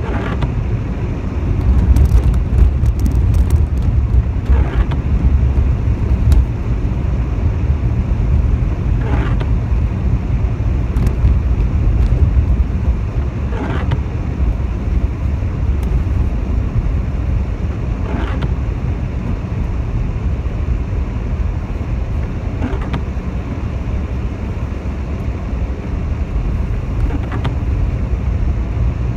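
Car interior on a wet road: a steady low rumble of engine and tyres on wet tarmac, with the windscreen wipers making a soft swish across the glass about every four and a half seconds.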